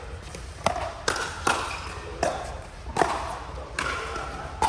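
Pickleball rally: paddles hitting the plastic ball back and forth, about seven sharp pops at uneven gaps of roughly half a second to a second.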